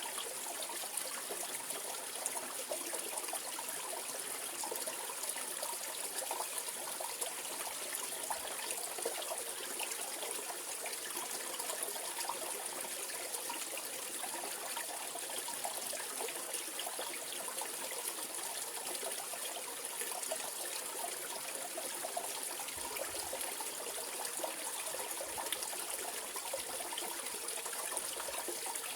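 Mountain valley stream: water running and splashing over rocks, a steady babbling with many small trickles and no change throughout.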